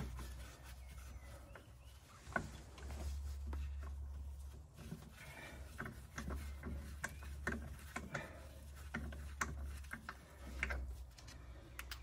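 Faint, scattered metallic clicks and taps of wheel bolts being fitted by hand into a car's alloy wheel, with a low rumble that comes and goes.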